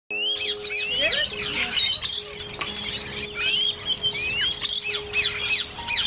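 Dense chorus of small birds chirping, many quick rising and falling chirps overlapping, over a steady held musical drone.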